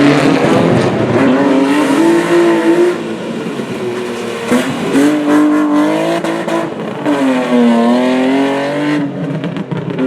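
A rally car's engine accelerating hard on the stage: its note climbs, drops sharply at each gear change (about 3 and 7 seconds in), and climbs again, then fades away near the end.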